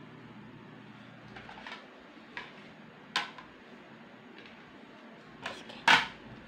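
Spatula knocking against a stainless steel mixing bowl: a few scattered sharp knocks, the loudest near the end.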